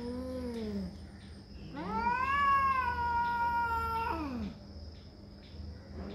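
Domestic cats yowling in a territorial standoff. A low, drawn-out threat yowl tails off about a second in. A louder, higher yowl then rises and holds for about two and a half seconds before dropping away, and a third yowl begins at the very end.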